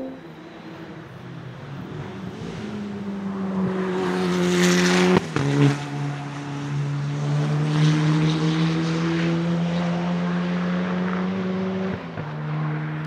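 Dallara Stradale EXP track car's turbocharged four-cylinder engine accelerating hard past the trackside. The pitch climbs as it comes closer and is loudest about five seconds in, where a sharp crack comes with a sudden drop in pitch. It then runs on steadily, with another drop in pitch near the end.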